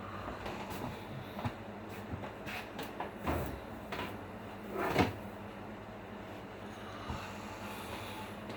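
Scattered light knocks and bumps of household things being handled, the loudest about three and five seconds in, over a faint steady hum.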